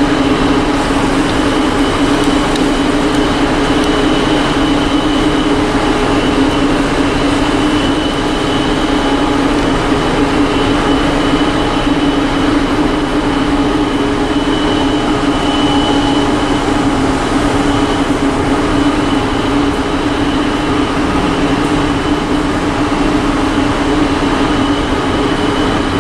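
Loud, steady mechanical drone from a cruise ship's deck machinery, most likely its ventilation fans, with a constant low hum and a faint high whine on top.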